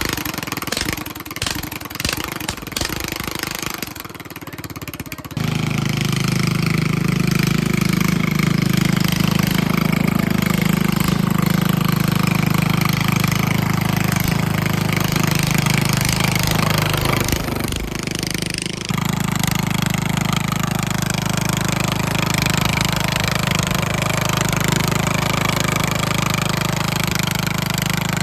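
Craftsman riding lawn mower engine sputtering as it starts, catching about five seconds in and then running steadily through a short upturned hood-stack exhaust pipe. Its running dips briefly about 17 seconds in and then picks back up.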